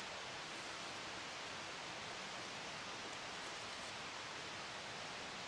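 A low, steady, even hiss with no distinct sounds in it: background noise only.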